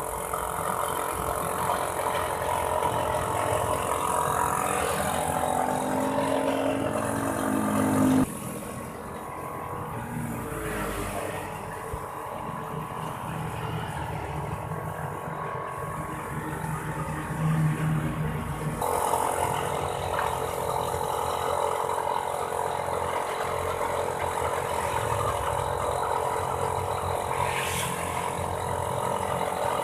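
Engine running steadily in three clips cut together, with abrupt changes in its sound about 8 seconds in and again about 19 seconds in.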